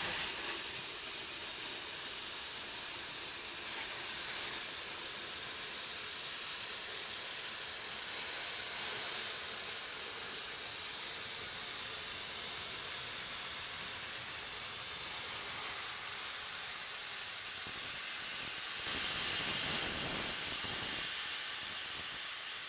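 Steam hissing steadily as it vents from a two-cylinder steam towing winch, with no beat of the engine running; the hiss swells louder for a moment near the end.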